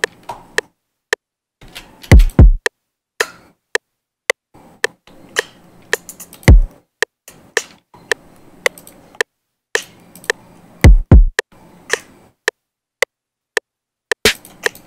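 Programmed drum pattern playing back at 110 BPM from a sampled hip-hop drum kit. Deep kick hits fall in pitch, some doubled, about every four and a half seconds, over short sharp ticks on every beat.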